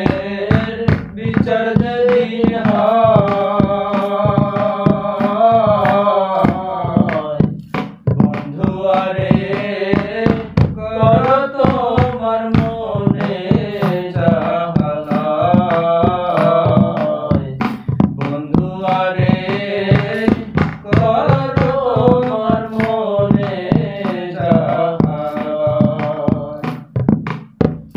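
Men singing a Bengali folk song in long, drawn-out phrases with wavering held notes, over a steady percussion beat.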